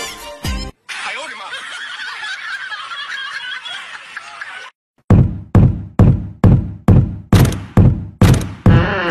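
A rhythmic series of sharp knocks, about three a second and evenly spaced, each with a heavy low thump, starting about halfway through. Before that comes a few seconds of indistinct noisy sound.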